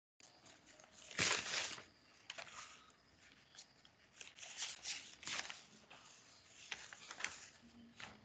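Faint rustling and handling noise with scattered clicks, heard through a video-call microphone; the loudest rustle comes about a second in.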